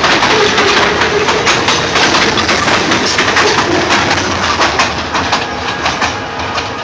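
Freight train's covered hopper cars rolling past, steel wheels clicking and clattering over the rails, getting quieter near the end as the last car moves away.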